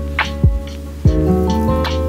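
Background music: a mellow track with sustained chords and a beat of soft kick drum and light percussion.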